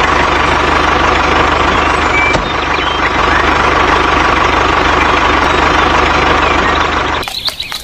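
A steady engine running sound that cuts off suddenly near the end.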